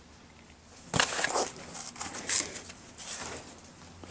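A sharp knock about a second in, then irregular scraping and rustling as a cardboard template is handled and pressed against a plastic mud flap.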